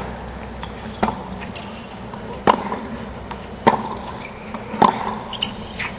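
Tennis ball struck by rackets back and forth in a hard-court rally: four sharp hits about a second and a quarter apart, with fainter ticks between.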